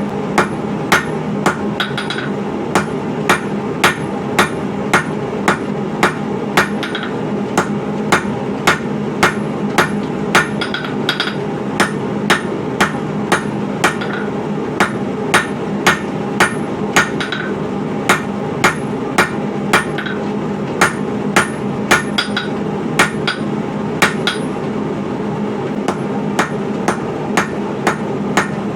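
A 3-pound hand hammer beats hot coil-spring steel on an anvil in a steady rhythm of about one and a half to two blows a second, drawing out and tapering the end of the bar; some blows ring. A steady low hum runs underneath.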